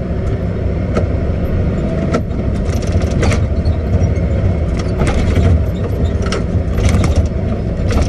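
Cat 623K elevating scraper's diesel engine running steadily, heard from the operator's cab, with irregular clanks and rattles from the machine about once a second.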